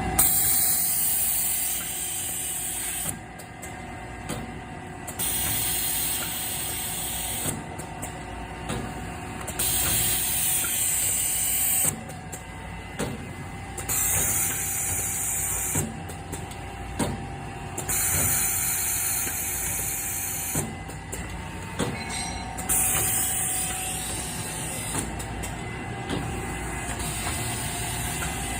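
Automatic bottle labeling machine running: a steady mechanical hum with fixed tones, and a high hiss that switches on and off about every two seconds, with light clicks in between.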